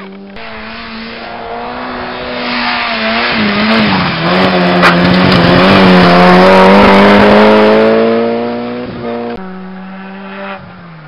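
A small rally hatchback's engine revving hard as it passes close, with tyres squealing and throwing smoke. The sound swells to its loudest in the middle and then fades. About nine seconds in it cuts abruptly to a steadier engine note.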